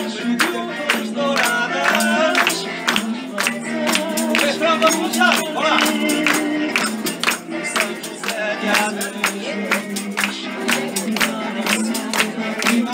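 Diatonic button accordion playing a lively tune with held chords, while hand claps keep a steady beat about four times a second and voices sing along.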